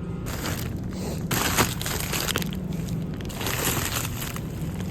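Irregular rustling and crinkling noise, swelling and fading in uneven stretches, over a steady low hum.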